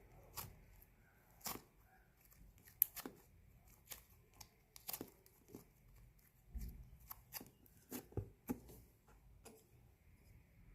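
Scattered light clicks, snips and crinkles of small craft materials being handled, about one or two a second.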